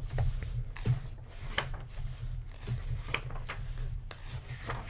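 Paper pages of a graphic novel being handled and turned by hand: a few brief rustles and light taps, spaced irregularly, over a low steady hum.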